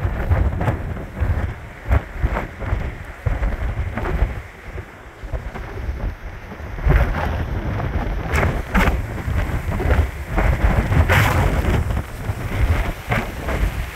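Strong storm wind buffeting the phone's microphone in uneven gusts, a heavy rumble with irregular crackling blasts.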